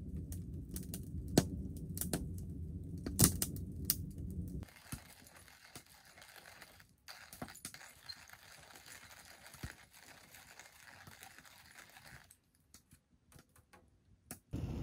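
Wood stove fire burning: a low steady rumble of the draft with sharp crackles and pops from the burning wood. About five seconds in it drops to a much quieter faint hiss with only an occasional crackle.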